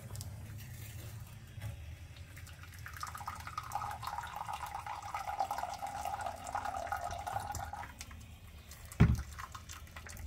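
Liquid splashing in a thin stream from a rear differential's drain hole into a catch container, heaviest from about 3 to 8 seconds in: the diff being drained and flushed with degreaser. A single sharp thump about 9 seconds in.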